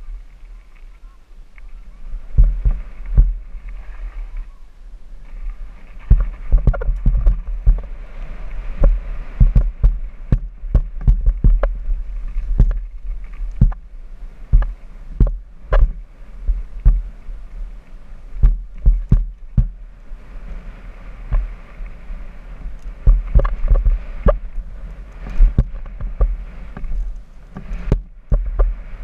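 Downhill mountain bike running fast over a rough dirt and gravel trail, recorded at the rider's helmet: a heavy low wind rumble on the microphone with tyre noise, broken by many sharp, irregular knocks and clatters as the bike hits bumps. It is quieter for the first two seconds and eases briefly a few seconds later, then stays busy.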